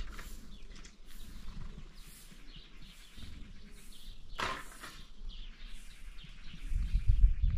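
Rural outdoor ambience with birds chirping about twice a second. One louder animal call comes about four and a half seconds in, and a low rumble swells near the end.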